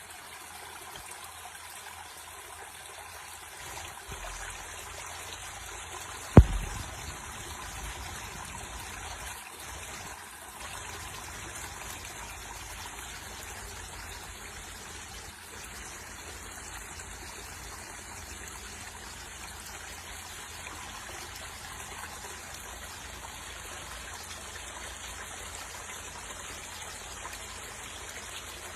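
Water trickling steadily into a garden pond. A single loud thump about six and a half seconds in.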